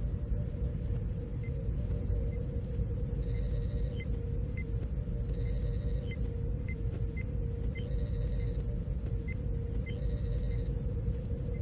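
Steady low rumble with a constant hum. Faint short high electronic beeps recur throughout, with a longer high chirp about every two seconds.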